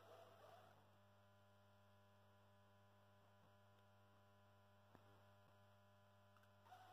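High-pressure sodium lamp on its three 70 W ballasts giving a steady mains hum. A rough buzz sits on top of the hum at the start and comes back near the end, and there is a faint click about five seconds in.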